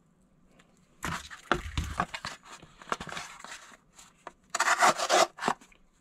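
Small knife blade of a multitool cutting and scraping through cardboard in a series of rough strokes, starting about a second in, the loudest near the end, as the blade's sharpness is tried out.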